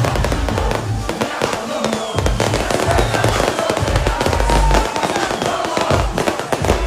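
Fireworks crackling in a rapid, dense run of pops over loud music with a heavy bass beat.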